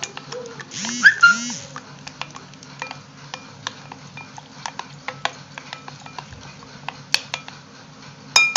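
A spoon stirring milk and cornflour in a bowl, tapping and scraping against the sides in many quick, irregular clicks, with a louder clink that rings briefly near the end. About a second in, a short high-pitched voice-like call cuts across the stirring.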